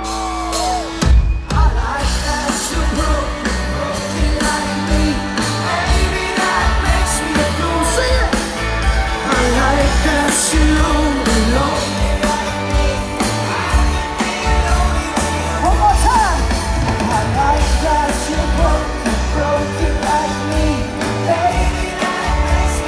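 Live pop-rock band playing through a large outdoor PA, with a sung vocal over a heavy bass beat, recorded on a phone from within the crowd. The music dips briefly about a second in, then the full band comes back in.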